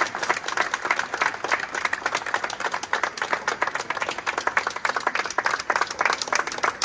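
A small group of people applauding, with steady, dense hand clapping.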